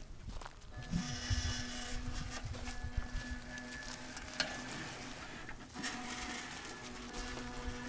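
Electric-wheelchair drive motors of a home-built R/C lawnmower whining steadily as it drives over grass, starting about a second in, over a low rumble from the wheels and load.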